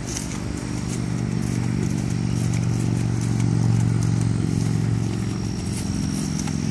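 A motor vehicle's engine running with a low, steady drone that grows louder to a peak about halfway through and then eases off slightly, with faint hoofbeats of a trotting horse.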